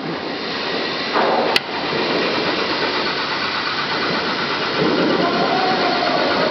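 OMNI 4-axis 1325 CNC router running, its motors moving the spindle head along the gantry with a steady mechanical noise. A sharp click comes about a second and a half in.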